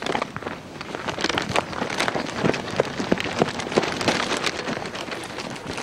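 Dense, irregular crunching and crackling of gravel and dry ground, many small clicks in quick succession, growing louder about a second in.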